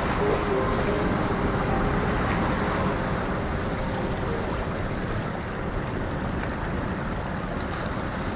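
Steady rushing of water pouring over a small creek waterfall.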